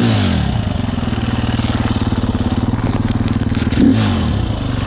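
KTM EXC enduro motorcycle engine idling steadily, with a short throttle blip at the start and another about four seconds in. A quick run of light clicks comes just before the second blip.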